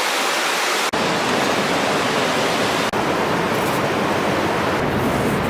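Steady rushing noise of ocean surf on a beach, broken twice by brief dropouts, about a second in and near three seconds, with more low rumble after the first.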